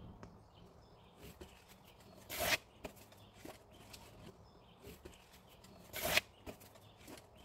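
Cardboard sheets being handled and pushed into place: soft rustling and light knocks, with two louder rustling scrapes about two and a half seconds in and again near six seconds.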